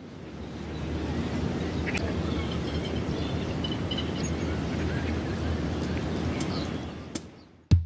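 Outdoor ambience of a steady rushing, wind-like noise with a low hum and faint scattered bird chirps. It swells in over the first second and fades out shortly before the end, where two sharp clicks follow.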